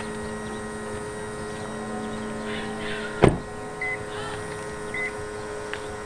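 A Toyota Prius's door slammed shut about three seconds in, a single sharp thud, and a steady low hum stops with it. Short high electronic beeps follow about once a second.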